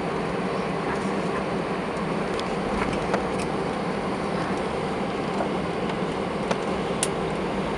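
Steady cabin hum and rumble of an Airbus A320 taxiing, its jet engines running at low taxi power. A few faint clicks sound over it, the sharpest near the end.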